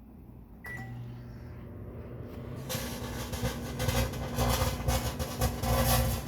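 Microwave oven starting up with a brief beep and a steady mains hum. About two seconds later a plasma arc inside the cavity begins crackling and buzzing loudly, growing louder.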